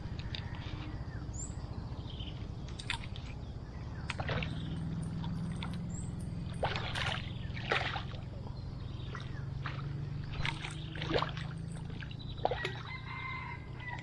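Water splashing and sloshing in short irregular bursts, typical of a hooked fish thrashing at the surface, over a steady low rumble of wind on the microphone.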